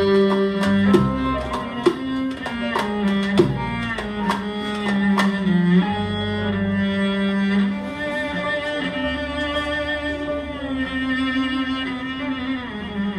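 Cello solo with a small string ensemble accompanying, played live: short, sharply attacked notes for the first five seconds or so, then long bowed notes held steady.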